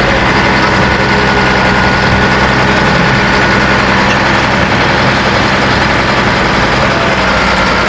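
Heavy engine idling steadily, a continuous low running sound with a noisy haze over it.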